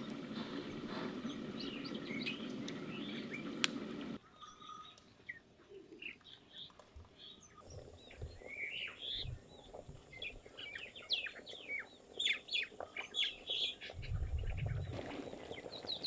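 Birds chirping in many short, rapid calls, after a steady low noise that cuts off abruptly about four seconds in. A brief low rumble comes near the end.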